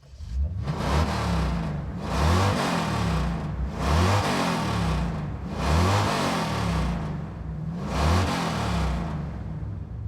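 Muscle car engine revved five times, about two seconds apart, each rev rising in pitch and falling back, then settling to a low idle rumble near the end.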